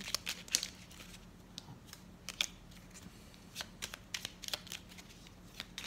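A small deck of oracle cards shuffled by hand: a run of irregular light clicks and snaps as the cards slide and slap against each other.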